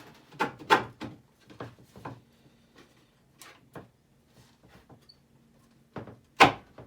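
Metal U-bolt being worked down into drilled holes in a plywood base: a series of scattered knocks and clicks of metal on wood, the loudest one near the end.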